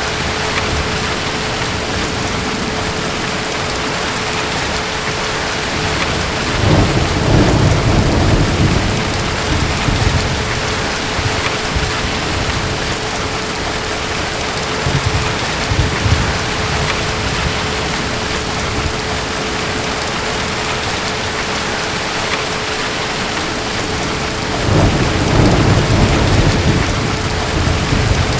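Steady heavy rain with distant thunder rumbling low twice, about seven seconds in and again near the end.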